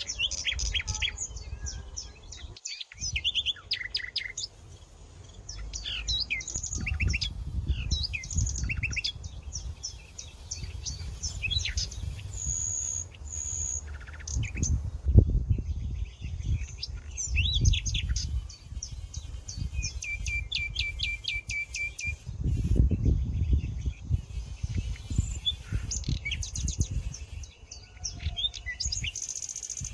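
Several birds chirping and singing, with short high calls overlapping and one bird giving a quick run of repeated notes about two-thirds of the way through. A low rumble comes and goes underneath.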